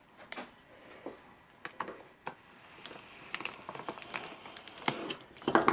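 Clear plastic bag crinkling and ticking in scattered sharp clicks as it is handled and cut open with a thin blade. The clicks grow thicker and louder toward the end.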